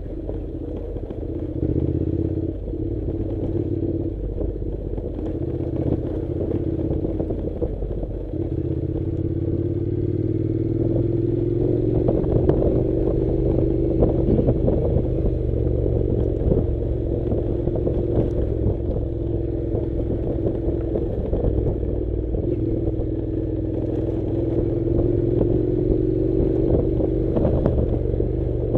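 Honda NC700 motorcycle's parallel-twin engine running under way, its pitch rising and falling gently with the throttle, over a rough unpaved track with scattered clatter and rattles from the bike and the ground.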